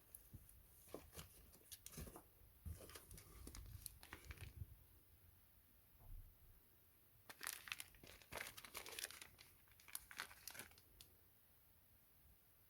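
Packaging crinkling and tearing as it is handled and opened, in two spells of crackling: one starting about a second in and lasting a few seconds, the second a few seconds later. It is quiet and close.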